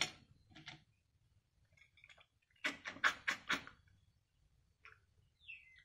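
Several short, wet sucking and slurping sounds, bunched together about three seconds in: stir-fried river snails being sucked out of their shells.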